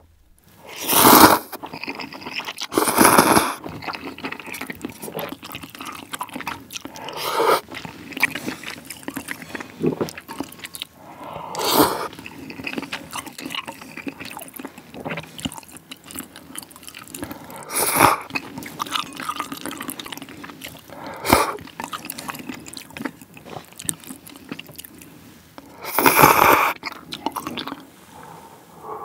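Close-miked eating sounds of thick, chewy ramyeon noodles in spicy broth: several loud slurps, with wet chewing and small liquid sounds in between. Near the end comes a longer slurp of broth.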